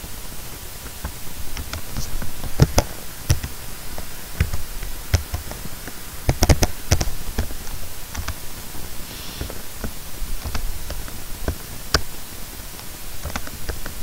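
Computer keyboard keys and mouse clicking in irregular, scattered clicks over a steady hiss.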